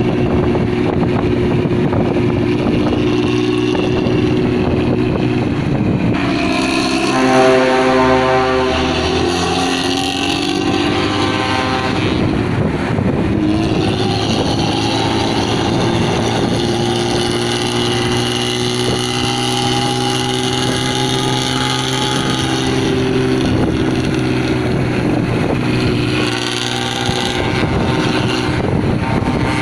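Bus diesel engine running through its rumbling, snoring straight exhaust. The pitch climbs as the engine revs from about six to ten seconds in, then holds steady.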